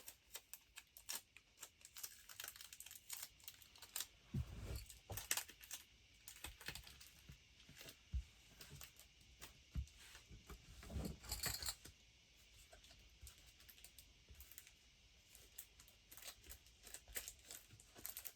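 Faint hand-handling noises of tape and a paper card being stuck onto a cutting board: scattered small clicks, taps and rustles, with a few dull thumps.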